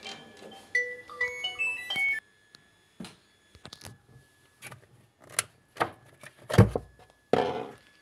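A Samsung front-loading washing machine's electronic jingle, a short tune of stepped beeping tones, cut off abruptly about two seconds in. Scattered handling knocks and clicks follow, with one heavy thump and a rustle near the end.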